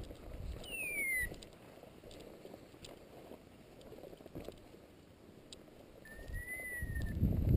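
Two short whistled calls over low rustling and footsteps through dry scrub. The first whistle, about a second in, slides down in pitch; the second, near the end, rises and then falls.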